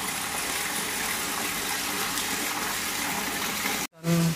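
Steady splashing of a pump-fed water jet falling into a pond. Near the end the sound cuts off abruptly and a brief, loud, steady low hum follows.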